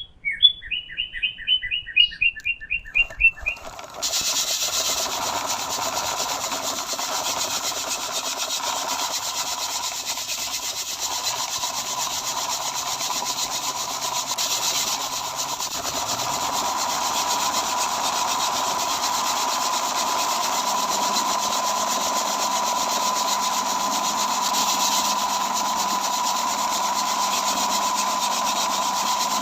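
A short run of quick repeated chirps. Then, about four seconds in, a small motor starts up and runs steadily with a thin, even whine.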